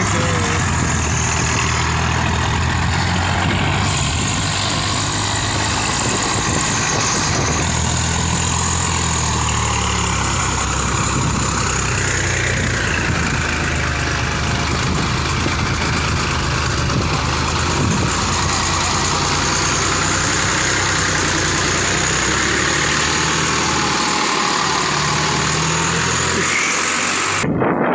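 Swaraj 855 tractor's three-cylinder diesel engine running steadily under load as it pulls a heavily loaded trailer through soft field soil. The sound cuts off suddenly near the end.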